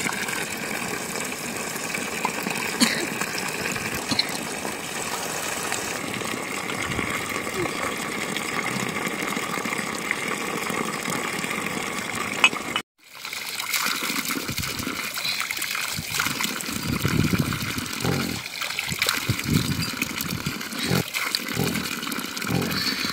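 Running water, a steady rushing haze, broken by an abrupt cut about halfway through; after the cut the water sounds rougher and more uneven.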